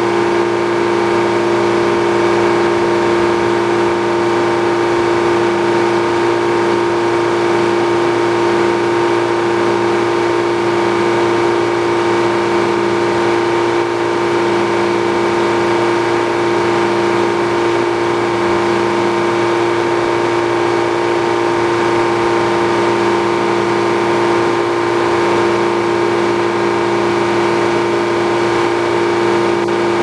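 Old Frick sawmill running free between cuts: the large circular blade spinning and its belt drive and power unit running steadily, with a fixed whine and a lower hum that comes and goes about every second and a half.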